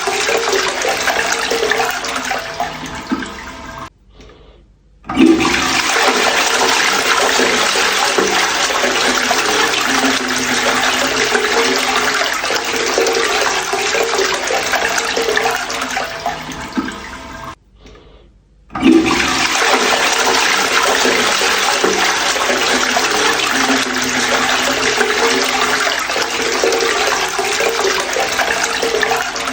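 Toilet flushing: a loud rush of water that dies away into a pause of about a second, then a fresh flush starting with a sudden surge. This happens twice, about 13 seconds apart.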